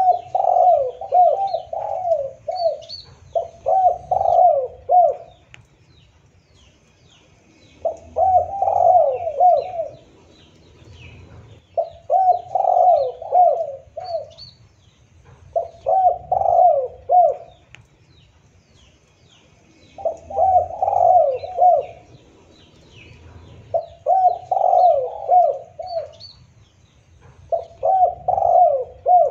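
Spotted dove (tekukur) cooing: a phrase of several quick coos, repeated about every four seconds, as used for a dove lure call. Faint chirps of small birds sound in the background.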